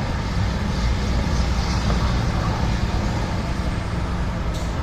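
Steady low rumble of road traffic and running vehicle engines, with a brief click near the end.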